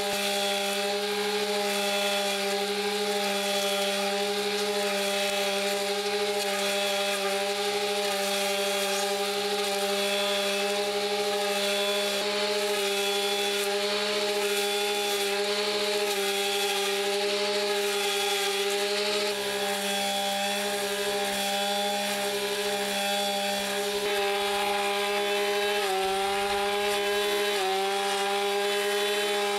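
STIHL brushcutter engine running at a high, steady speed while its nylon line head mows grass; the pitch dips briefly twice near the end.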